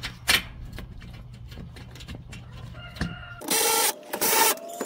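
A sharp plastic click as a fastener is pressed into the plastic underbody cover, followed by lighter clicks. About three and a half seconds in, a loud, harsh, pitched sound comes in three bursts.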